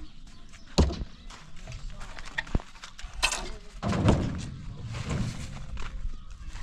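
A few irregular knocks and thuds, with one sharp knock about a second in and heavier thuds around the middle.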